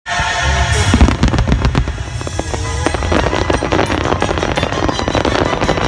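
Aerial fireworks shells going off in a rapid barrage: dense, overlapping bangs and crackling over a low rumble, with one sharp louder bang about a second in.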